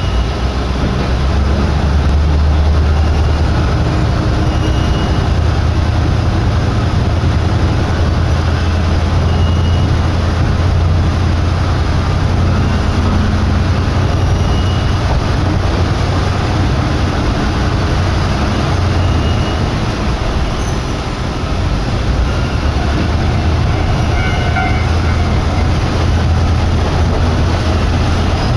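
Steady running noise inside a Kominato Railway diesel railcar: a low drone of engine and wheels on the rails that eases briefly about three-quarters of the way through.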